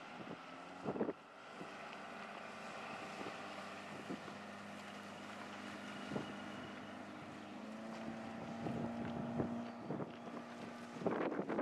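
Motorboat engine running steadily as a motor cruiser passes close by, its note stepping up slightly about eight seconds in. Wind buffets the microphone near the start and again at the end.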